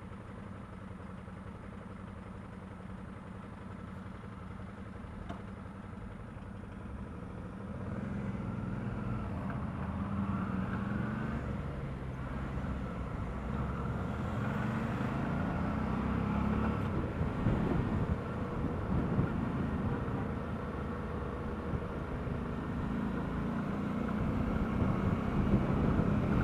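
Suzuki DL650 V-Strom's V-twin engine running, its revs rising and falling as it gets louder, with a few sharper peaks in the second half. The owner hears a clunking from it under moderate load when speeding up or slowing down, cause unknown.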